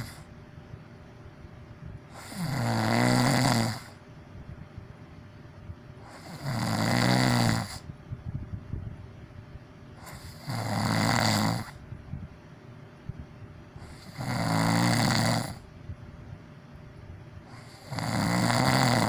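A person snoring: five long, pitched snores about one every four seconds, with softer crackling sounds between them.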